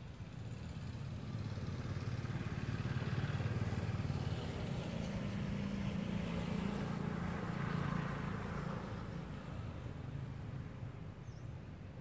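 A road vehicle passing: a low engine hum that swells over the first few seconds and fades toward the end. A faint short bird chirp near the end.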